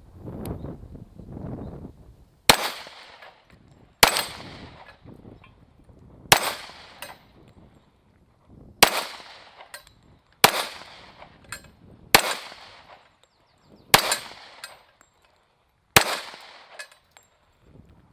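Eight single shots from a .45 ACP 1911 Commander pistol, fired slowly at an even pace about two seconds apart, each with a short echo and a faint click shortly after. The magazine feeds through without a stoppage.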